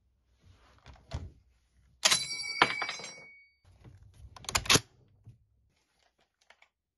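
M1 Garand rifle's steel action worked by hand: a sharp metal clack about two seconds in that rings on for about a second, followed a couple of seconds later by a few sharper metallic clicks and handling noise.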